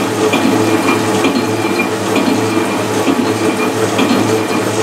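Machine tool running steadily while cutting metal, a constant hum with a light click about once a second.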